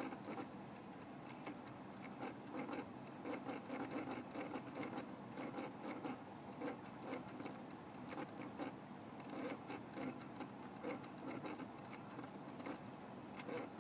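Irregular light ticking and tapping that keeps up throughout, a run of small clicks at an uneven pace: the unexplained strange noise.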